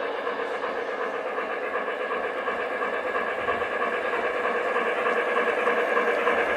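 Lionel O-gauge Western Maryland Shay model locomotive running steadily toward the microphone along three-rail track, growing gradually louder as it approaches.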